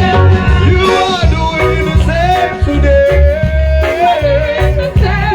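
Gospel worship music with a steady, pulsing bass beat under a held, wavering melody line.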